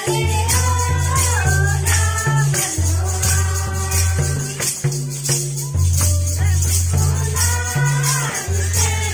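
Mundari wedding bhajan: a sung melody over a steady shaker rhythm and a low bass line that holds each note for a second or two.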